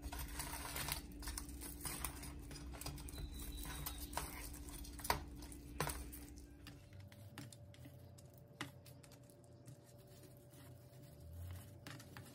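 Light, scattered clicks and taps of metal kitchen tongs and crisp fried quesadillas being set down and nudged into a row on a tray, with a few sharper clicks around the middle. A faint steady hum runs underneath.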